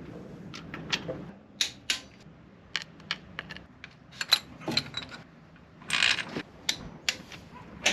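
Hand tools and metal engine parts clicking and clinking during hand work on a V8's valve gear: irregular sharp clicks and knocks, with a longer, noisier rattle about six seconds in.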